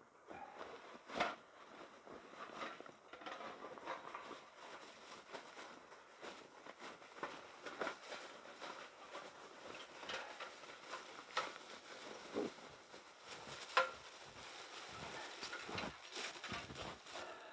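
Gear being rummaged out of a backpack: scattered rustling with several sharp knocks and clicks, the loudest about a second in and again near 14 seconds. Near the end come footsteps through snow.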